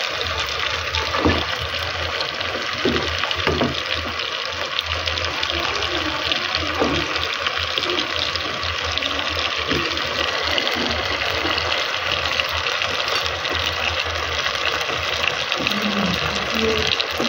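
Fish head and tomato sauce frying in oil in a metal pot, a steady sizzling hiss, with a few light knocks near the start.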